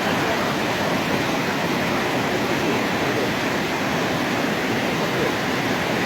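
Whitewater of a river rapid rushing, a steady loud noise of churning water.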